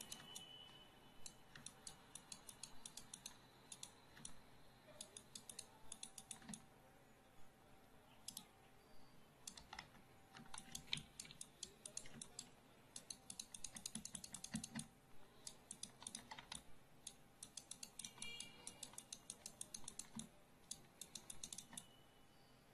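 Faint clicking of a computer keyboard and mouse, short taps often in quick clusters of several at a time.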